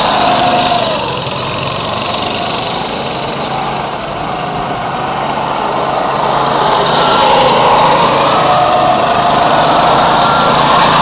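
Go-kart engines buzzing as karts race around the track, their pitch rising and falling. The sound dips a little about a third of the way in, then grows louder again as karts come close.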